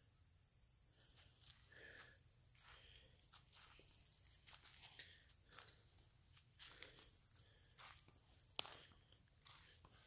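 Near silence: a faint, steady high insect trill in the background, with soft footsteps on sandy garden soil and a couple of sharp clicks.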